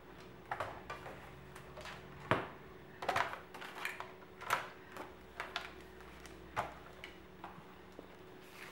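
Scattered knocks and clicks, unevenly spaced, as a plastic Fiskars paper trimmer is handled and set down on a wooden table and a sheet of card is laid on it.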